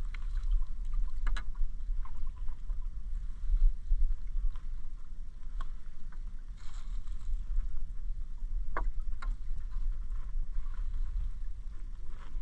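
A fine gill net being hauled by hand over the side of an outrigger canoe, water splashing and dripping off the mesh, with scattered small knocks against the hull. A steady low rumble runs underneath.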